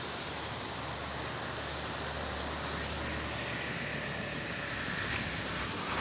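Steady open-air background noise: a low rumble under an even hiss, with a few faint high chirps in the first half.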